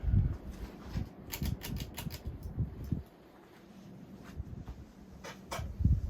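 A 52-inch Hunter Brentwood hugger ceiling fan coasting down after being switched off. Over it come scattered sharp clicks, several in a row about a second in and again near the end, and dull low thumps at the start and just before the end.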